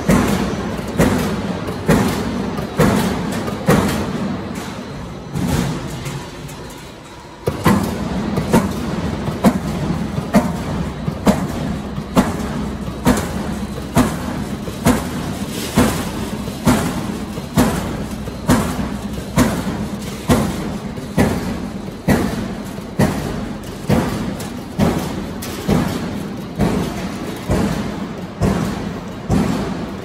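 Background music with a steady thudding beat about once a second. It fades out briefly about a quarter of the way in and then comes back in suddenly.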